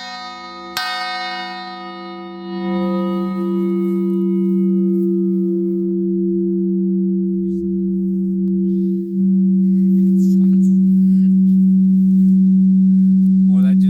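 A one-ton manganese-steel gravel crusher cone hung as a bell, struck about a second in. Its bright high overtones fade over a few seconds, while a deep steady hum swells louder and keeps ringing.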